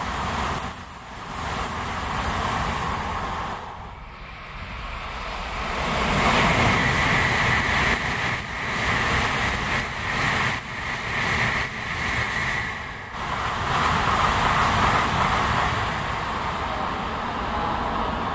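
N700-series Shinkansen trains passing at speed: a continuous rush of air and wheel-on-rail noise with a steady high hum. The noise dips briefly about four seconds in, then swells again as the next train goes by.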